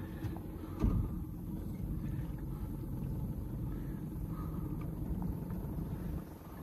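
Small boat's motor running at low speed, a steady low rumble under way. There is one loud knock about a second in, and the rumble drops off near the end.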